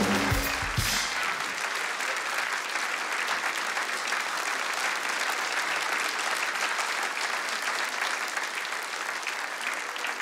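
Studio audience applauding steadily. A short burst of live band music plays over the applause at the start and stops about a second in.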